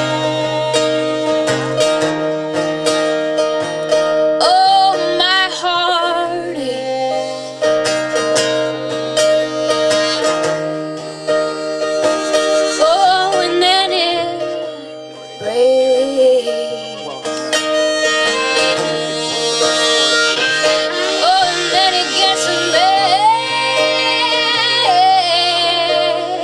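Acoustic band playing an instrumental break: a harmonica solo with bent, wavering notes over a steady string-band accompaniment and a bass line that changes note every couple of seconds.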